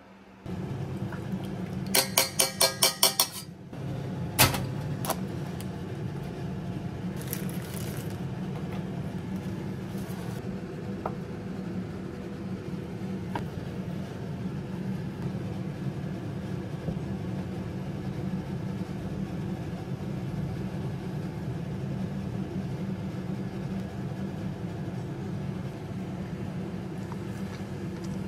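Gas stove igniter clicking rapidly for just over a second, about two seconds in, over a steady low hum. A few light clinks of utensils against a steel pan follow.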